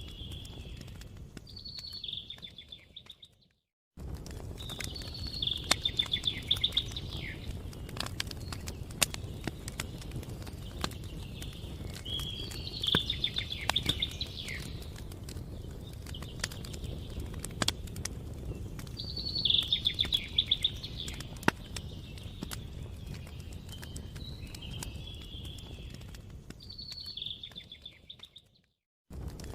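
Wood fire crackling, a steady low rumble with frequent sharp pops, while a bird sings short chirping, trilled phrases every several seconds. The sound fades out and cuts back in twice, at the seams of a looped recording.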